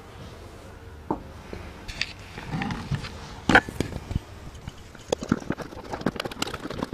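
Handling a taped cardboard parcel: scattered knocks and rustles, with one sharp knock about halfway. From about five seconds in, a quick run of clicks and scratches as scissors slit the packing tape.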